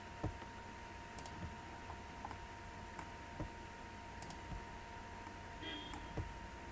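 Scattered clicks of a computer mouse and keyboard, about nine spread irregularly, over a faint steady hum.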